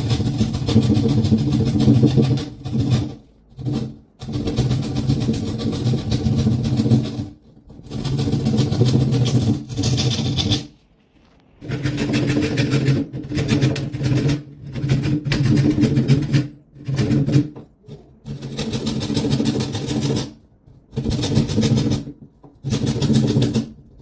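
A handheld power tool with a flat black blade cutting into the wooden core of a door to enlarge a lock mortise. It runs with a steady buzz in repeated bursts of a few seconds, stopping briefly between them.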